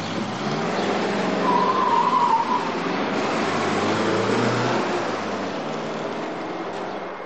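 A car driving off hard, its engine running loudly, with a brief tyre squeal about two seconds in; the engine sound then fades away.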